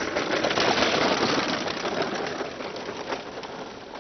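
Homemade kart's wheels rattling and crunching over a dirt and gravel track as it rolls past close by. The noise is loudest about a second in, then fades as the kart moves away.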